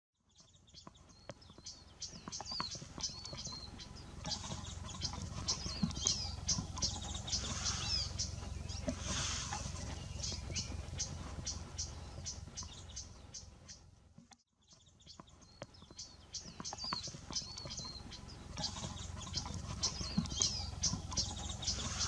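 Small songbirds calling: many rapid high chips and short twittering phrases with a few thin whistled notes, over a steady low rumble. The sound breaks off for a moment about two-thirds of the way in.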